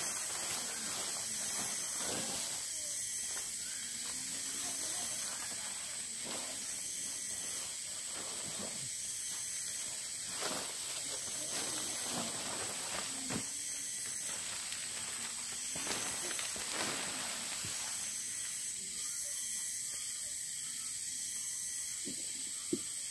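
Nylon flysheet rustling and crackling in irregular bursts as it is shaken out and draped over a small dome tent, with a steady high hiss behind it and a sharp click near the end.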